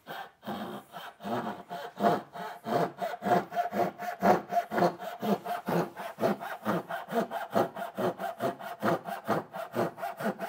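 Japanese back saw (dovetail pull saw) cutting across a wooden board with rhythmic rasping strokes, slower at first and then settling at about three strokes a second, with a faint ringing from the blade.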